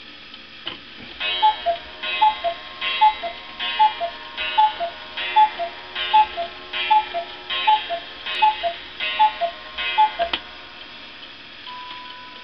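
Antique cuckoo clock calling cuckoo about twelve times, each call a two-note pipe whistle, higher then lower, with the bellows' reedy hiss, at a steady pace of a little more than one call a second. A click sounds as the calls start and another as they stop, and the clock's music box begins its tune near the end.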